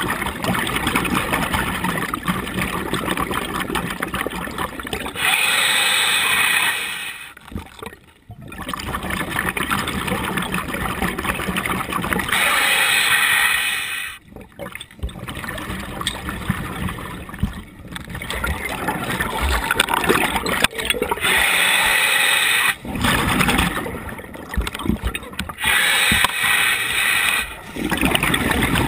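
Underwater scuba breathing through a regulator: a slow cycle of bubbling, gurgling exhalation broken by brighter, hissing rushes, about four breaths.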